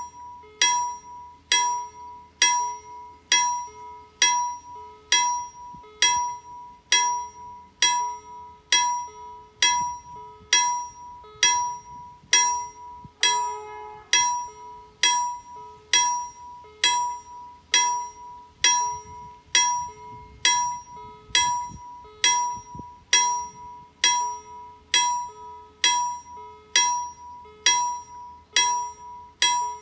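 Level crossing warning bell (KLD-40) striking at an even rhythm, about one and a half strikes a second, each stroke ringing out briefly before the next: the crossing's warning of a train on approach.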